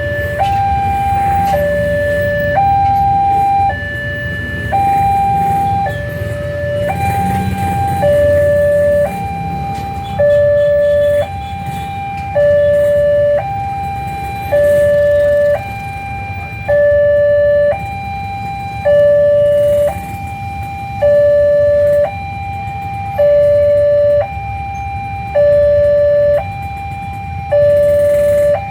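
Railway level-crossing warning siren sounding a two-tone hi-lo alternation, high and low notes about a second each, over a steady low rumble. It warns that a train is coming and the crossing barrier is being lowered.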